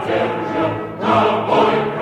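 Choral music: a choir singing with accompaniment, in a regular pulse about twice a second.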